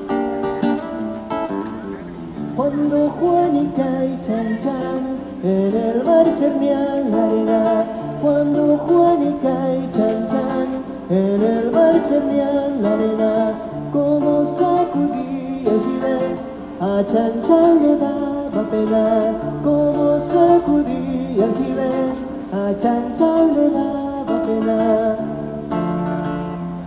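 Acoustic guitar playing a plucked melody over recurring low bass notes.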